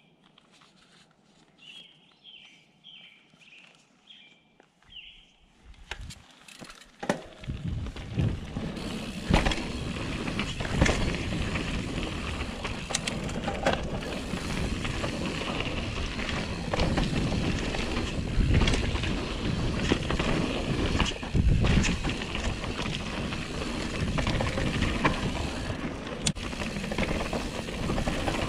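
A bird calls about six times in short chirps over the first few seconds. Then a Canyon Torque full-suspension mountain bike sets off down a dirt trail: tyres rolling on dirt with a steady rush, and frequent knocks and rattles as the bike goes over bumps.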